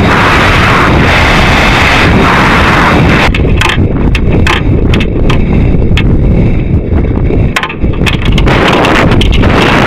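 Loud rushing, buffeting noise picked up by the onboard camera of the Stiga suborbital sounding rocket in flight. About three seconds in the hiss thins to a low rumble with scattered crackles, and the full rushing comes back near the end.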